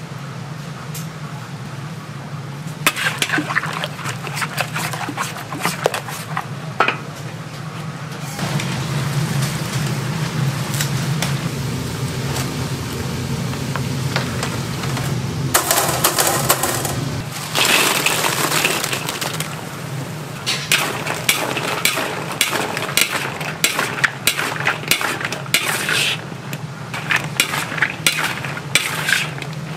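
Metal spatula and fork scraping and clattering against a cast-iron gamasot cauldron as sweet sauce is stirred and fried chicken is tossed in it, the clatter thickest near the end. A hiss runs through the middle with a louder rush partway through, over a steady low hum.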